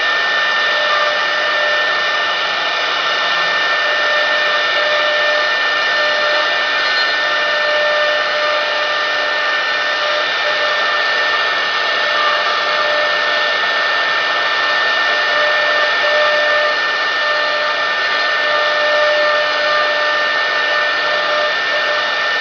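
1325 CNC wood router's spindle running at a steady speed, a constant high whine over a hiss.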